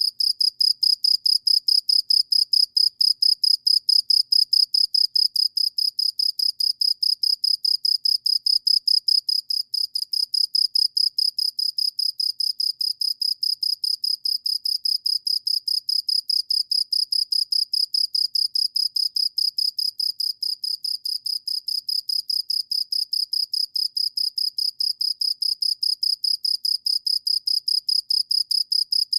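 Cricket chirping without pause: an even, high-pitched train of pulses, about four or five a second.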